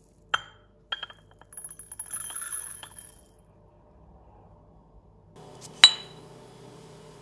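A marble mortar clinks twice against a ceramic dish, then ground pepper pours out of it and patters into the dish for about two seconds. After a short lull, a small ceramic bowl gives one sharp clink, the loudest sound.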